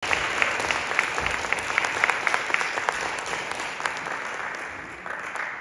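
Small audience applauding, with individual claps standing out, dying down toward the end.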